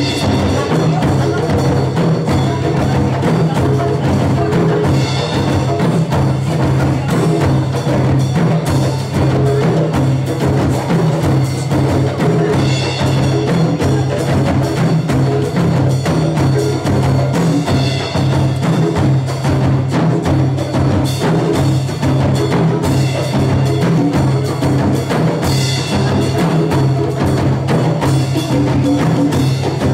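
Percussion music with a steady, driving beat: drums, including congas, and sharp clicking strokes played continuously.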